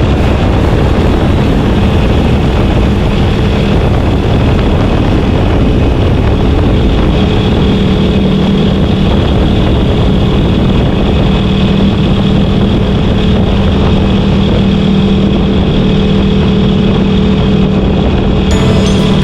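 Honda CB72 parallel-twin motorcycle engine running at steady highway speed, a constant-pitched hum over a thick rush of wind and road noise.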